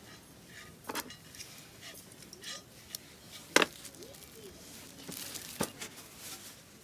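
A few sharp clinks and knocks of utensils and dishes during a meal, the loudest about three and a half seconds in.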